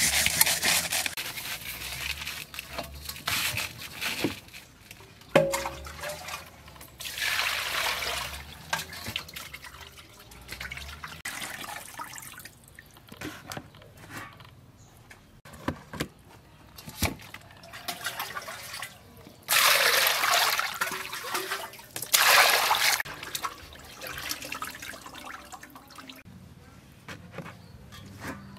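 Water pouring and splashing in several bursts as a whole fish is rubbed with salt and rinsed in a metal bowl, with a few sharp knocks of the bowl between.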